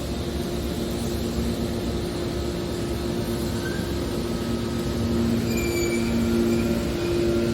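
Hydraulic scrap-steel baler running: a steady machine hum and drone, growing slightly louder with a faint high squeal from about five seconds in.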